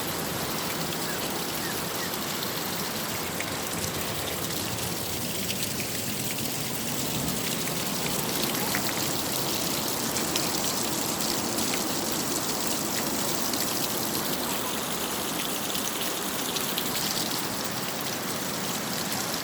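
Sea waves washing onto the beach with the tide nearly in: a steady rushing hiss with faint crackles.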